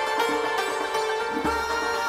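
Background instrumental music: a melody over a held drone note, with a low beat about every two seconds.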